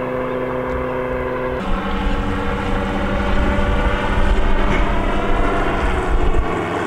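Engine and propeller of a powered paraglider trike running steadily in flight; the pitch changes abruptly about a second and a half in, then holds with slight shifts.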